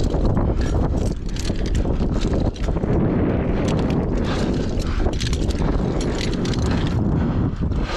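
Wind buffeting the microphone high on a steel cell tower, with irregular clicks and knocks from a climber's hands and gear on the tower's steel members.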